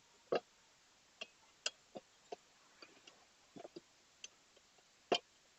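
Irregular sharp clicks and knocks, the loudest about a third of a second in and another near the end: a steel tyre lever working a tubeless tyre's bead over the rim of a motorcycle wheel.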